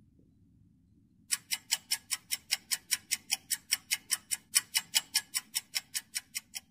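Countdown-timer clock ticking sound effect, a steady run of sharp ticks at about four a second, starting about a second in.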